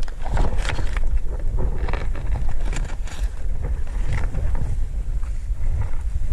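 Wind buffeting the microphone as a steady low rumble, with scattered short rustles and crackles through the first few seconds.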